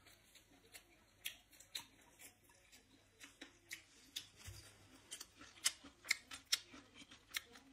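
Close-up eating noises: irregular sharp mouth clicks and smacks as food is eaten by hand from a plate, louder and more frequent from about five seconds in.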